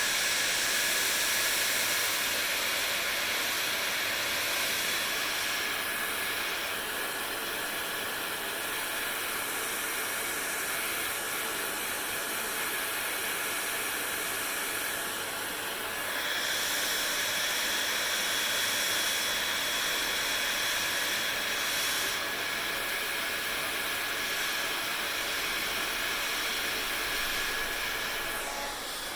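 Electric hair dryer running steadily: a constant rushing hiss of air with a faint whine, its tone shifting a few times.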